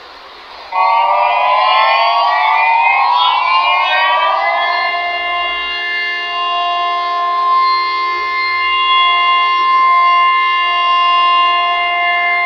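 Emergency alert siren starting under a second in, rising in pitch for about four seconds, then holding a steady wail of several tones sounding together.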